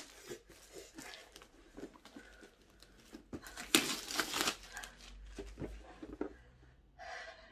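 Paper packaging on a laptop box being lifted, crinkled and torn: irregular rustling and crackling, with a louder burst about four seconds in.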